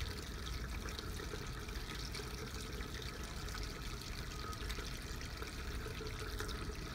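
Soft, wet squishing and crackling of facial-cleanser lather being worked between two palms into a creamy foam, over a steady low hum.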